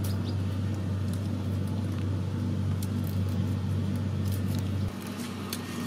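A steady low hum, like a distant motor, that cuts off abruptly about five seconds in, under faint papery crackles and small clicks from garlic and shallot skins being peeled by hand.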